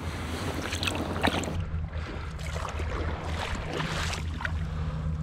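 Water splashing and sloshing in short bursts as a northern pike is handled at the water's edge and let go, over a steady low hum.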